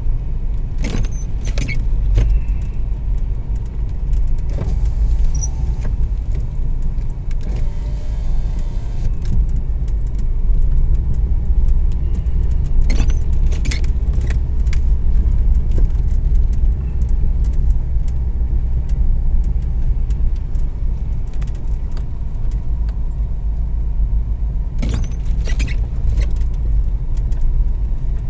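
Car driving slowly on a snow-covered road, heard from inside the cabin: a steady low rumble of engine and tyres. Three times, about a second in, around the middle and near the end, short clicks and scrapes come from the windshield wiper sweeping the snowy glass.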